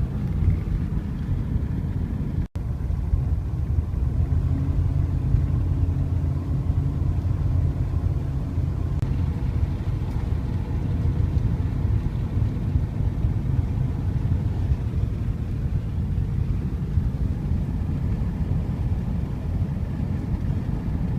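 A vehicle driving: a steady low rumble of engine and road noise, broken by a brief dropout about two and a half seconds in.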